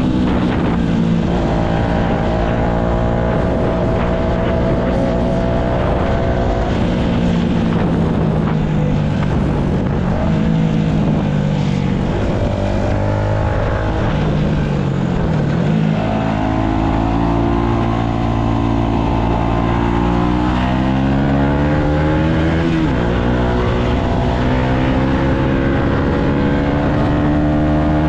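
Yamaha MT-125's single-cylinder four-stroke engine running under way through the gears. Its pitch climbs over a few seconds and then drops sharply at each gear change, several times, with a longer fall and pick-up about halfway through.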